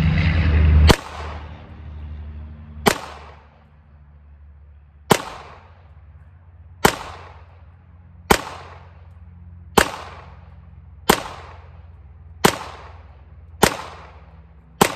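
CZ 75 TS2 competition pistol firing ten single shots at an unhurried, uneven pace, about one every one to two seconds, each with a short echoing tail. A low rumble runs under the first second, before the first shot.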